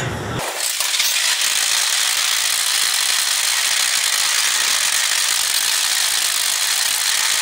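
Twisted Colossus roller coaster train rattling along its track, a loud steady rattle that comes in abruptly under half a second in.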